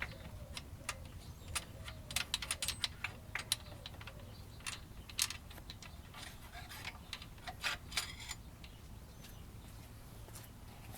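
Irregular light metal clicks and ticks from socket tools and a loosened nut being handled on a motorcycle frame bolt, thinning out after about eight seconds.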